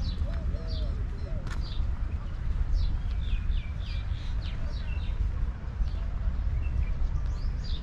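Small birds chirping, many short sharp calls, some in quick runs around the middle, over a steady low rumble; a few lower calls at the very start.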